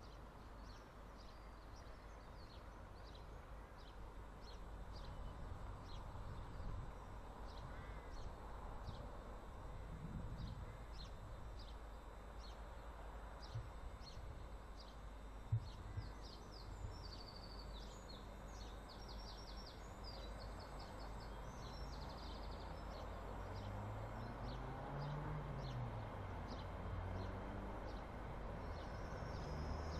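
Small birds chirping about twice a second, with a brief busier song in the middle, over a faint low rumble that slowly grows as a TransPennine Express Class 802 bi-mode train approaches at low speed. Two sharp clicks come half a second apart about halfway through.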